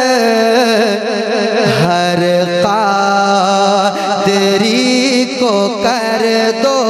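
Male voice singing a manqabat (Urdu devotional verse) into a microphone over a PA, drawing out long ornamented notes that waver and bend in pitch.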